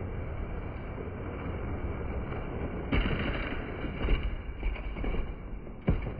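Die-cast toy monster trucks rolling down a plastic track with a steady rumble. About three seconds in they clatter through the finish gate, and a sharp knock near the end comes as one truck tips onto its side.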